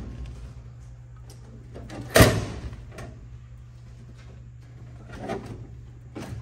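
Knocks and thuds at a snack vending machine's push-flap delivery door as it is pushed open and reached into. There is one loud knock about two seconds in and smaller knocks later, over a steady low hum.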